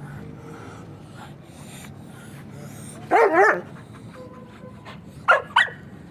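A dog barking: one longer call with a wavering pitch about three seconds in, then two short barks in quick succession near the end.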